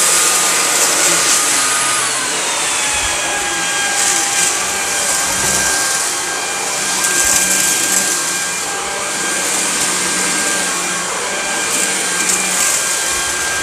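Samsung Jet VS70 cordless stick vacuum running on carpet, sucking up spilled cat litter: a high motor whine over loud airflow hiss. About two seconds in, the whine drops in pitch and then holds steady.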